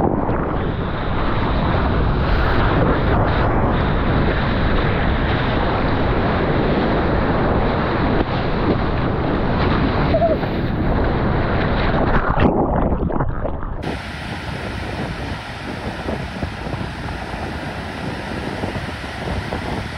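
Whitewater rushing and spraying close around a surfboard-mounted action camera as a surfer rides a wave, with wind on the microphone. About two-thirds of the way through it changes to quieter, steady surf breaking in the distance.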